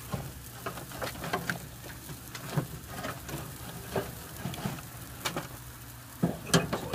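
Hot lit charcoal in a kettle grill crackling, with scattered sharp pops and clicks over a low hiss. A louder clatter starts near the end.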